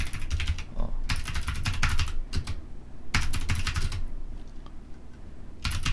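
Typing on a computer keyboard: quick runs of key clicks in several bursts, with a pause of about a second and a half near the end before the typing picks up again.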